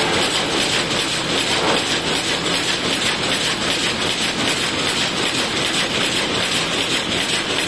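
Rapier loom with an electronic jacquard head weaving at speed: a steady, rapid mechanical clatter.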